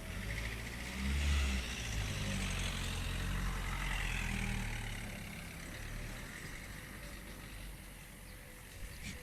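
A motor vehicle's engine rumbling, loudest from about one to five seconds in, then fading away.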